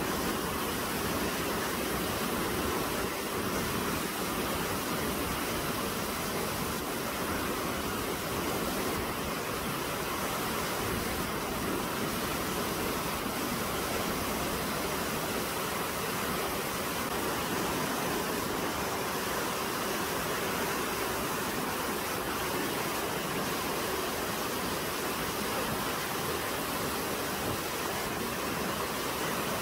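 Steady rush of whitewater churning down a concrete artificial slalom course.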